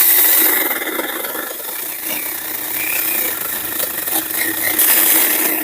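Cordless battery chainsaw cutting through a piece of wood: a steady electric motor hum under the rasping of the chain in the wood, loudest at the start and again near the end.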